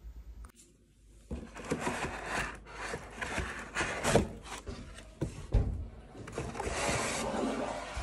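Objects being handled and moved: irregular rubbing and scraping with several sharp knocks, the loudest about four seconds in.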